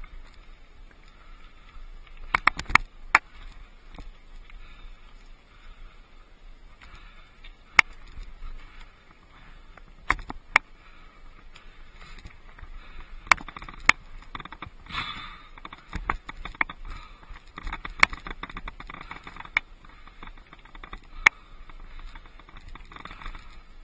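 Mountain bike rolling over a rocky dirt trail: the tyres crunch on gravel under a steady low rumble, and the bike gives a dozen or so sharp knocks and rattles at irregular intervals as it hits rocks.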